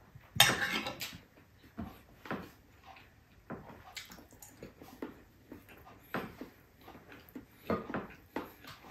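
Close-up eating sounds: chewing and mouth noises while eating rice and meat with the fingers, in short irregular bursts, with one louder, harsher sound about half a second in.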